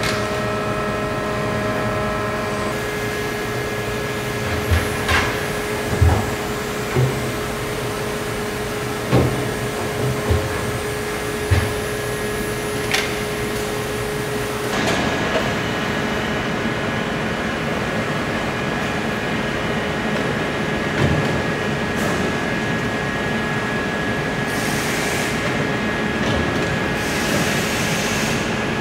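Leaf spring parabolic tapering line running: a steady machine hum with several steady tones, and a string of heavy metallic knocks and clunks from the machinery between about 4 and 13 seconds in, with a few more later.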